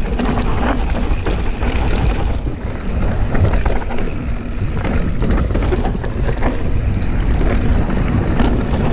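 Downhill mountain bike ridden fast down a dirt forest trail: wind rumbling over the camera's microphone and tyres rolling on dirt, with frequent rattles and knocks from the bike over bumps.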